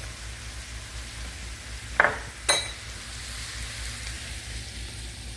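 Browned ground beef sizzling in a pan and being stirred as brown gravy mix goes in, a steady hiss, with two sharp knocks about two seconds in, half a second apart.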